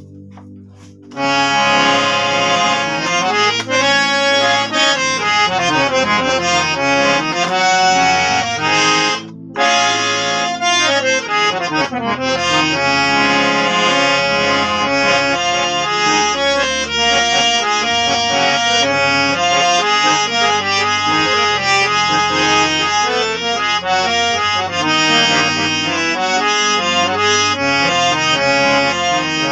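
Harmonium played with its coupler switched on: sustained reed chords and melodic runs, each key also sounding its upper octave. It starts about a second in, with a brief break about nine seconds in. The playing tests the freshly reset coupler, and all the keys sound properly.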